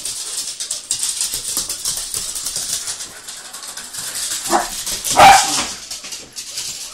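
Shetland sheepdogs' claws clicking and scrabbling rapidly on a hardwood floor as they chase. A sheltie barks twice, about four and a half seconds in and again just over half a second later, and the second bark is the loudest.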